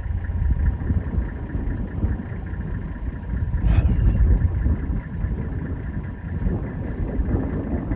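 Wind buffeting the microphone outdoors: a loud, uneven low rumble that swells in a stronger gust about four seconds in.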